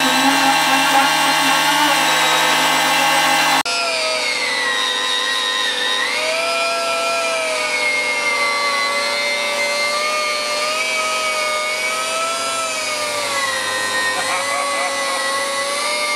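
Blackridge air die grinder with a wire wheel brush spinning against sheet-metal bodywork, a steady whine whose pitch sags and recovers as the wheel is pressed into the metal. A different steady tool sound before it cuts off abruptly about four seconds in.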